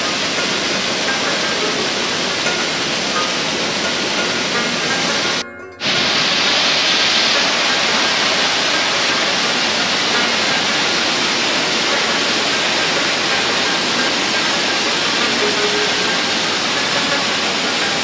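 Waterfall: a steady, loud rush of falling water, with faint music underneath. It breaks off for a moment about five and a half seconds in, then resumes.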